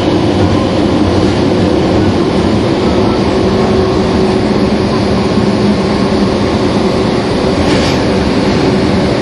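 Resistor-controlled Meitetsu 100 series electric train running at a steady speed through the subway tunnel: a constant drone of traction motors and wheels on rail, with a steady hum that neither rises nor falls. A brief faint hiss is heard about 8 seconds in.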